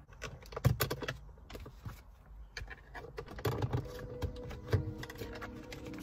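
Plastic shift-boot trim surround clicking and rattling as it is worked loose by hand and lifted around the gear lever: a run of small, irregular clicks and taps.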